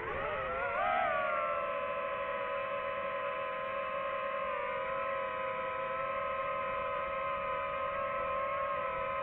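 DJI FPV drone's motors and propellers whining in flight, several close pitches together; the pitch dips and climbs back up about a second in, then holds steady.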